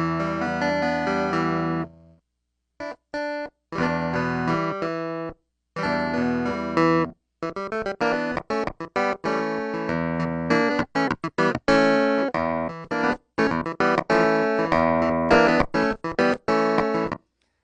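Clavinet played with its dry tone, no effects: a held chord cuts off about two seconds in, then after a couple of short stabs come phrases of quick, clipped staccato chords and notes with brief silent gaps between them.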